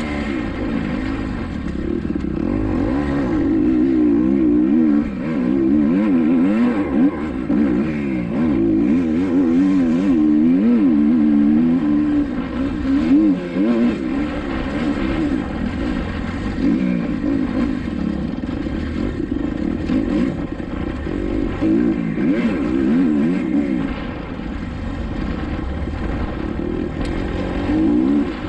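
Kawasaki KX250XC dirt bike engine being ridden hard, its revs rising and falling over and over as the throttle is worked and the gears change.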